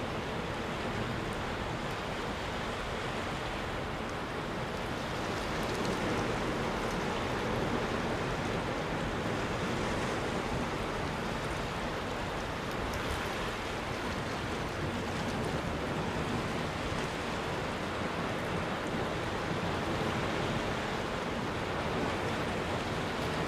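Sea waves washing against a rocky shore: a steady rushing surf that swells slightly a few times.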